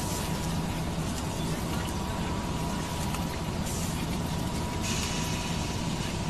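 Steady low rumble of industrial machinery with a faint steady whine over it. A brief hiss comes about three and a half seconds in, and a louder hiss from about five seconds in.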